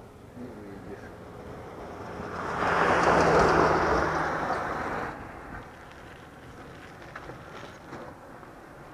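A motor vehicle passes close by on the road. Its engine hum and tyre noise swell over a couple of seconds, are loudest about three seconds in, and drop away sharply about five seconds in.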